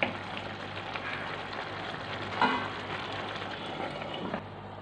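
Thick gravy bubbling and sizzling steadily in a pan on a gas flame. About two and a half seconds in, a steel lid is set down on the pan with a short metallic clink that rings briefly.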